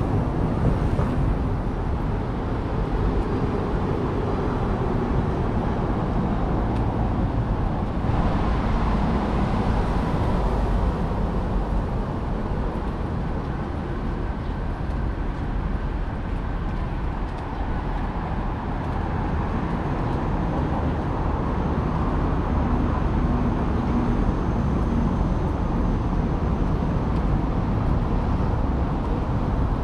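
Steady outdoor street noise: a continuous low rumble, a little brighter from about eight to twelve seconds in.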